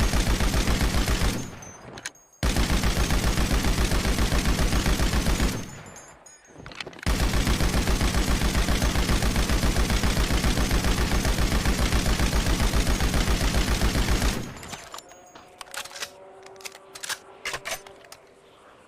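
Machine gun firing fully automatic in three long bursts of rapid, evenly spaced shots, with two short pauses between them. After the last burst stops, about three-quarters of the way in, a few scattered metallic clinks with short ringing follow.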